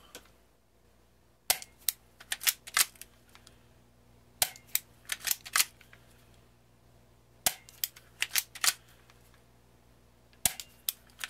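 Spring-powered airsoft 1911 pistol fired four times, about three seconds apart. Each shot is a sharp snap followed by a quick run of smaller clicks and clacks.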